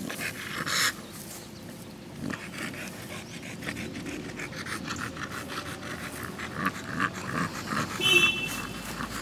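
American Bully dog panting hard in a quick, steady rhythm, open-mouthed with her tongue out. A short high squeak cuts in about eight seconds in.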